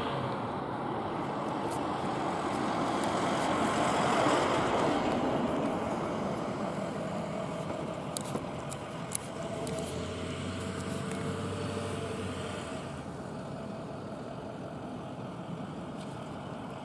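A road vehicle running and driving by, its engine and tyre noise swelling to its loudest about four seconds in and then slowly fading. A low steady engine hum comes in near the middle and stops a few seconds later.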